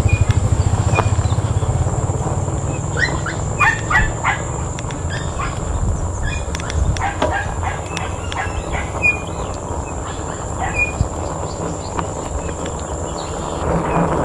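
A dog barking in short calls, a cluster about three to five seconds in and a few more later, over steady road and wind noise from the moving e-bike. A low hum fades away over the first two seconds.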